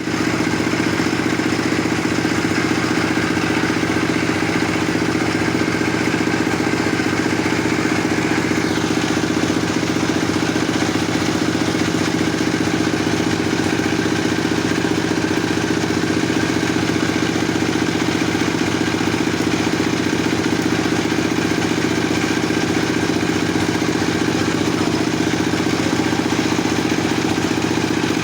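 Stihl 070 chainsaw, a large single-cylinder two-stroke, running at a steady, unchanging engine speed.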